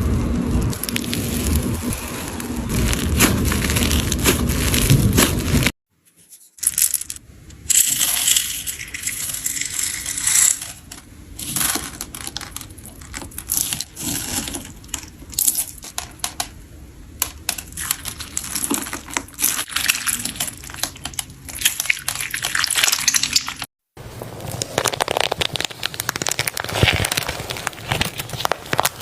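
Soft slime being squeezed and poked by hand, its trapped air bubbles popping in dense runs of small clicks and crackles. The sound cuts out abruptly twice where clips are joined.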